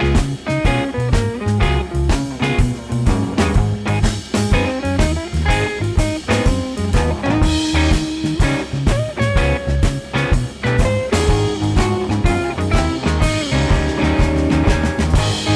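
Background music: an upbeat blues-rock band track with guitar and a steady drum beat.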